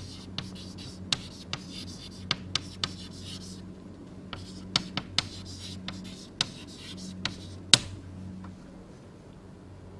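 Handwriting: a writing implement scratching, then a string of irregular sharp taps that stop about eight seconds in, over a steady low electrical hum.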